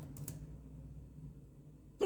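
Computer keyboard typing that stops a fraction of a second in with a few last keystrokes, leaving a low steady hum.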